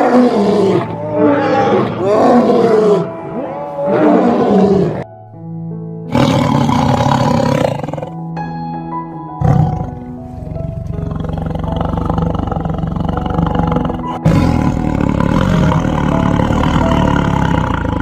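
Big-cat roaring calls over steady background music: about four lion calls in the first five seconds, each rising and falling in pitch, then long rough, noisy growling stretches with the music running on.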